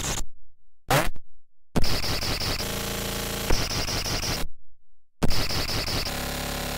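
Handmade modular noise synthesizer patched with cables, putting out harsh buzzing noise in blocks that cut in and out abruptly. A short blip comes about a second in, then a long stretch of layered steady tones under a high hiss, a brief silence, and another stretch that starts shortly before the end.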